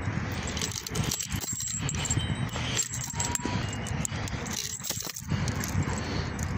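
Metal fittings of a dog's leash jangling in the hand, with a run of small clinks over rustling handling noise.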